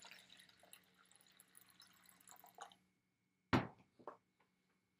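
Water poured from a plastic pitcher into a plastic measuring cup: a faint trickle and splash that tapers off after about two and a half seconds. Then a sharp knock and a lighter one just after.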